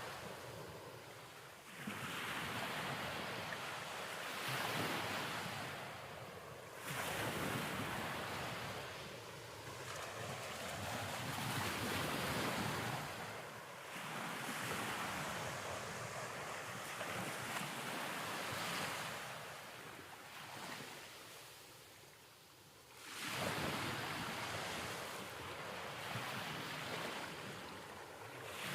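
Ocean waves washing in and drawing back: a rushing noise that swells and fades every few seconds, with a sharper surge as each wave breaks.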